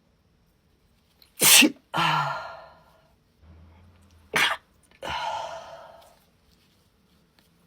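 A woman sneezing twice, about three seconds apart. Each sneeze is a sharp burst followed by a longer breathy trailing sound.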